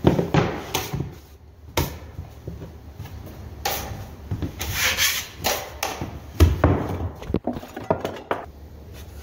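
Irregular knocks, clunks and scrapes of drywall tools and the phone being handled over a plywood subfloor, with the loudest knock about six and a half seconds in.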